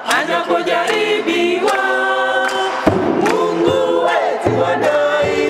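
Tanzanian church choir of men and women singing together in several voices.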